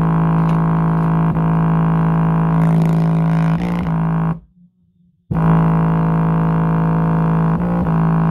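LG subwoofer driver playing a steady, buzzy low drone at one pitch, its cone visibly pumping. The tone cuts out for about a second midway, then comes back.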